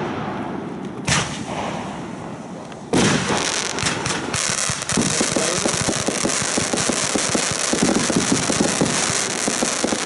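Aerial fireworks going off: a single bang about a second in, then from about three seconds a dense, continuous stretch of rapid crackling pops and bangs as many shells burst together.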